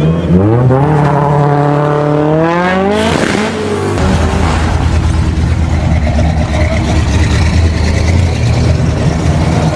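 A car engine revs hard in two rising sweeps, which cut off about three seconds in. Then a big car engine runs with a steady low rumble.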